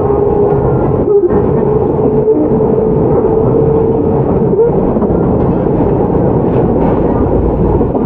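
Running sound of a Shizuoka Railway 1000 series train, a resistance-control stainless EMU, heard from inside the car: steady rumble of wheels on rail with a steady whine. A deeper low rumble comes in near the end.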